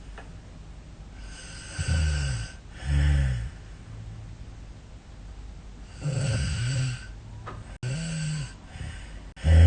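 A woman snoring in her sleep: about five low snores in uneven pairs, the last one the loudest, with quiet breathing between them. She suspects the snoring is a sign of sleep apnea.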